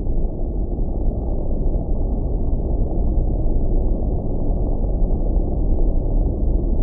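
Steady rumble of heavy freeway traffic, an even wash of passing cars with no single vehicle standing out.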